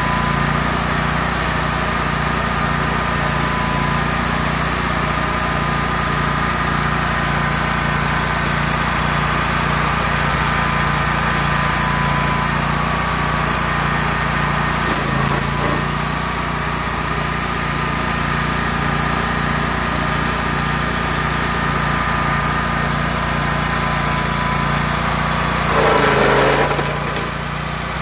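Rayco RG 1625 stump grinder running steadily while its cutter wheel works a small stump. About 26 seconds in it briefly gets louder and its pitch dips, then settles slightly quieter.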